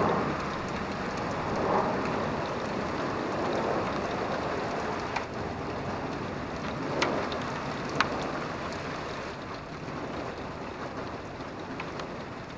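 Steady rain falling on a surface, with a few sharp single drips standing out in the middle, about four in all.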